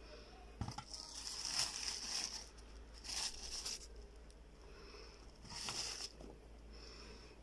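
Tissue paper in a cardboard shoebox rustling and crinkling as it is pulled aside by hand, in three bouts, the first starting with a light knock.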